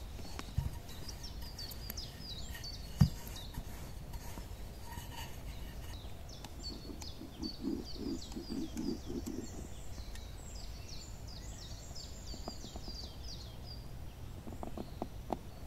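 Small birds chirping, a run of quick, high, falling chirps that is thickest in the middle. A single sharp knock about three seconds in.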